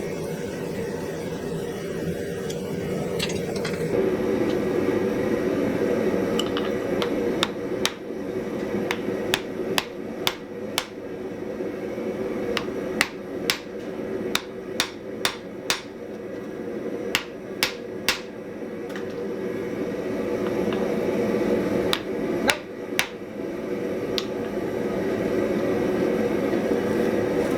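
Around twenty light, sharp hammer taps on metal, in quick clusters through the middle of the stretch, over a steady rushing noise of the forge heating the work toward welding heat.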